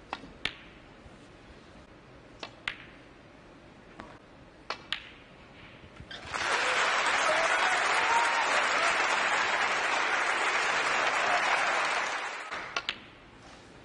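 Snooker balls clicking sharply as shots are played. About six seconds in, the audience starts applauding for about six seconds as the break passes a hundred, a century break, then the applause fades and the clicks resume.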